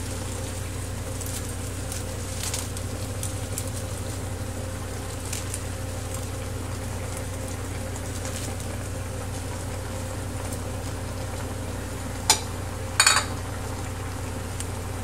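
Tilapia simmering in coconut milk in a wok on an induction cooktop: a steady hum with faint bubbling and crackling. Two sharp knocks near the end, a little under a second apart.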